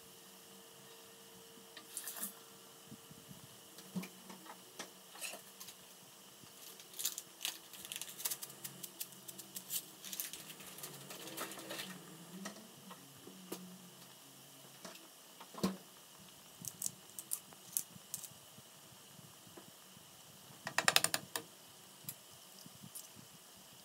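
Scattered clicks and taps of pots and utensils at a gas stove while frozen broccoli simmers in a pan. A short, fast clattering rattle, the loudest sound, comes near the end.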